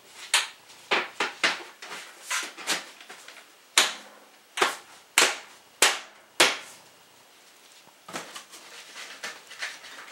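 Thin black steel stovepipe sections clanking and knocking as they are handled and pushed together, about a dozen sharp metal knocks over six seconds. Near the end a soft steady hiss of a wood fire burning in the stove takes over.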